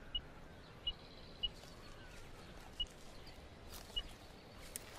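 Radio-telemetry receiver beeping with the pulses from a coyote's radio collar, picked up on a handheld Yagi antenna: five short, identical high beeps at irregular gaps of about a second.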